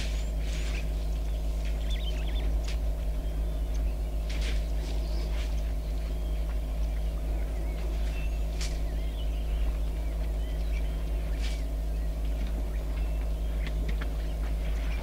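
A vehicle engine idling with a steady low hum, while birds chirp and call now and then.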